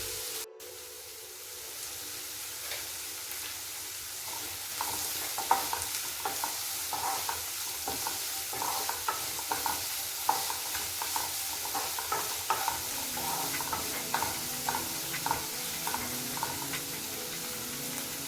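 Food sizzling as it fries in a pan, with a spatula stirring and scraping against the pan in short, irregular strokes that begin a few seconds in.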